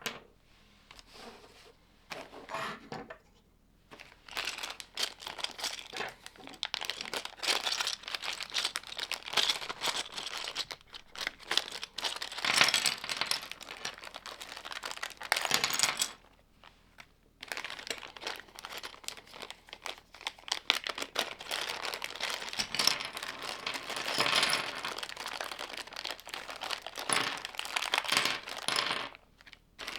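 Thin plastic LEGO parts bags crinkling as they are handled, with many small clicks, in long stretches broken by short pauses.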